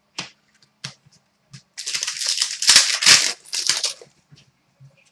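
A few soft clicks of trading cards being handled, then about two seconds of loud crinkling of card packaging.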